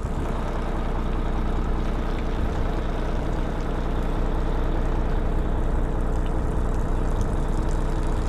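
Large diesel engine idling steadily, an even low drone.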